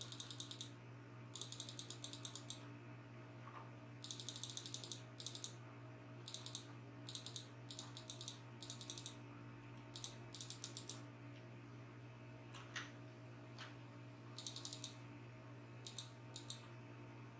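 Computer mouse scroll wheel ticking in a dozen or so short, rapid runs, with a couple of single mouse clicks near the end. A steady low computer hum underneath.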